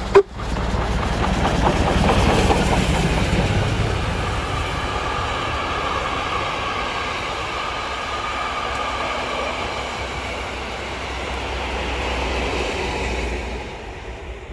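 Class 52 two-cylinder 2-10-0 steam locomotive 52 8177 passing at speed with a train of coaches. It is loudest about two seconds in, then the coaches roll by with a steady clickety-clack of wheels on rail, and the sound fades about a second before the end. A single sharp knock right at the start.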